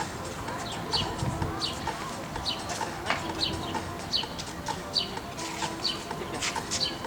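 Birds chirping, one short falling call repeated about once every second over scattered other chirps.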